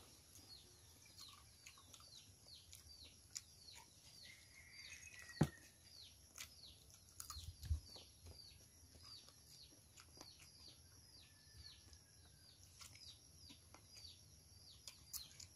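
Faint, steady series of high chirps, each falling in pitch, about two a second, with a few soft clicks and a sharper knock about five seconds in.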